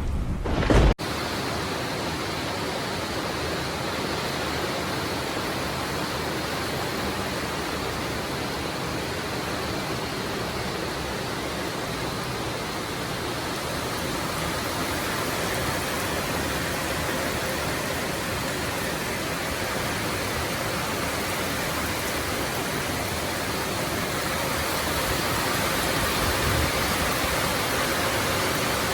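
Heavy rain pouring down in a steady hiss. A low rumble at the start cuts off suddenly about a second in.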